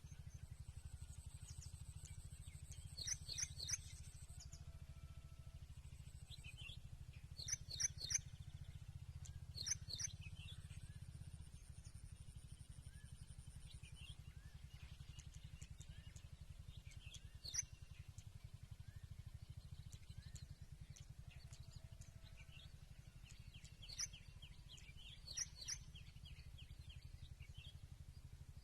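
Birds chirping in short clusters of high, quick notes every few seconds, over a steady low hum.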